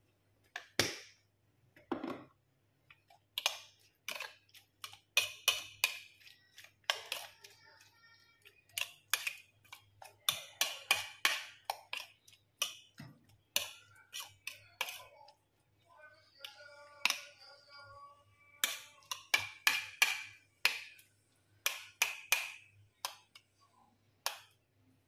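A metal spoon clinks and scrapes against a ceramic bowl while stirring a watery sauce full of chopped vegetables. The clinks are irregular and sharp, coming in quick clusters of several a second.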